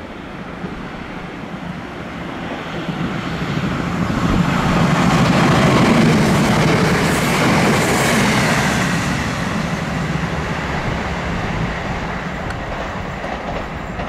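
GWR Class 165 Network Turbo diesel multiple unit passing at speed: engine and wheel noise on the rails grows as it approaches, is loudest about five to eight seconds in as it goes by, then fades as it runs away.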